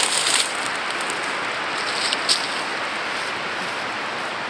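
Steady rushing hiss of wind through the conifers on an exposed hilltop, with a couple of faint clicks a little past two seconds in.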